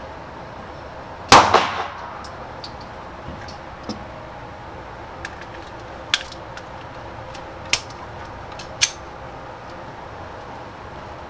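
A single pistol shot about a second in, ringing out in the reverberant indoor range, followed by several much fainter sharp cracks or clicks.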